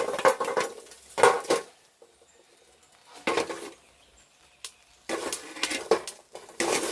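Burning coals being scraped up and dropped onto a metal pot lid: bursts of metal scraping and clatter, one at the start, one about a second in, one past the middle, and a longer one near the end.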